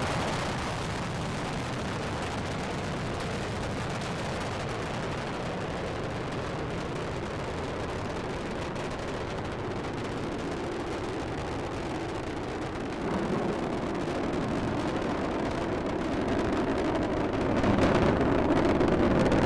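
Space Shuttle Discovery's rocket engines and solid rocket boosters during ascent: a steady, noisy rumble that grows louder about 13 seconds in and again near the end.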